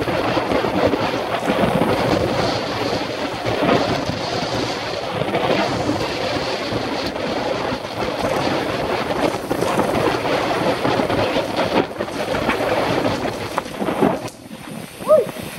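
Wind buffeting a helmet-mounted camera's microphone, mixed with the rumble and rattle of a mountain bike ridden fast downhill over dirt. The noise drops briefly near the end, then a short sharp sound stands out.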